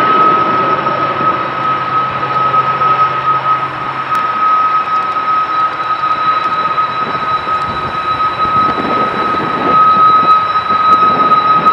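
Union Pacific diesel-electric locomotive working hard as it slowly hauls a long, heavy freight train up a steep grade: a steady engine roar with a constant high whine over it.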